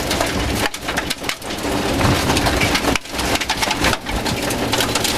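Rover 214 rally car heard from inside the cabin, its engine running hard on a gravel stage with gravel and stones rattling and pinging against the underside. The loudness dips briefly several times, where the driver lifts or changes gear.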